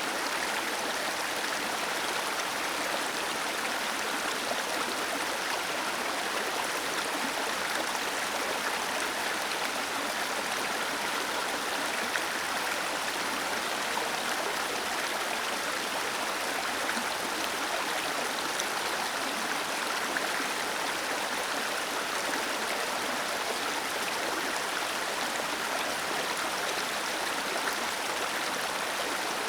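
Small waterfall splashing steadily, with no change in level.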